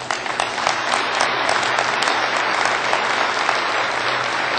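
Large crowd applauding: clapping breaks out suddenly and holds steady as a dense patter of many hands.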